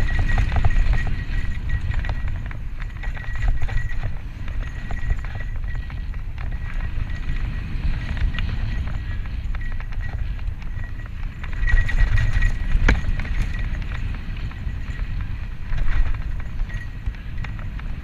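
Mountain bike, a Santa Cruz Tallboy LTC, descending dirt singletrack at speed: a constant rumble of tyres and wind buffeting the helmet-mounted camera, with scattered clicks and rattles from the bike over roots and bumps and a few harder jolts.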